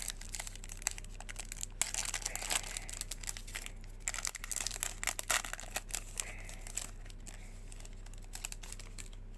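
The foil wrapper of a Panini Prizm football card pack being torn open and crinkled by hand: a run of quick, sharp crackles that thins out about seven seconds in.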